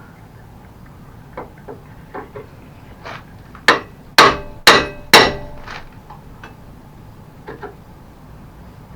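Hammer striking metal, knocking at a hinge pin to drive it out: a few light taps, then four hard blows about half a second apart that ring, then lighter taps.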